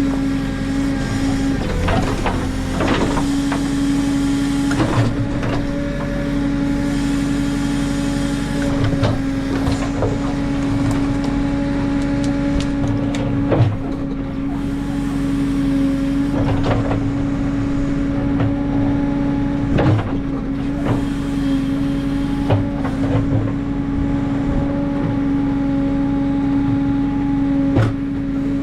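JCB 3CX backhoe loader's diesel engine running at a steady working speed with a constant hum, while the backhoe digs, with irregular knocks and clanks every few seconds.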